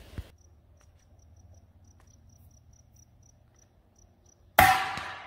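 A rifle shot fired into a long stack of tires used as a homemade silencer: one sharp report about four and a half seconds in that dies away over most of a second. Before it, an insect chirps in short, regularly repeated high notes.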